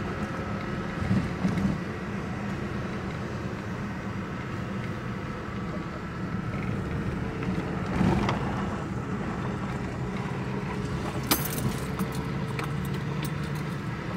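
Toyota Tacoma pickup driving: a steady low engine and road rumble that swells briefly about eight seconds in, with a few light rattles and clicks near the end.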